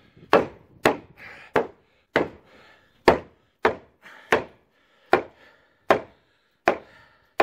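Repeated hammer blows on a concrete garage post and panel: about eleven sharp, evenly spaced strikes, roughly one and a half a second, working the section loose.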